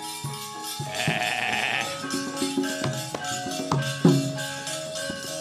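Javanese gamelan accompanying a wayang kulit battle: repeated pitched metallophone and gong-chime strokes with drum, cut by sharp metallic clattering that is typical of the puppeteer's kepyak plates. A short, higher held sound stands out about a second in.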